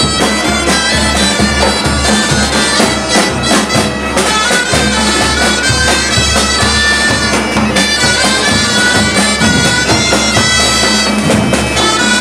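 Bagpipe playing a tune over a steady drone, with side drums beating along.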